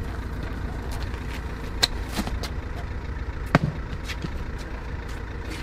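Delivery van's engine idling steadily, with two sharp knocks about two seconds in and again a second and a half later.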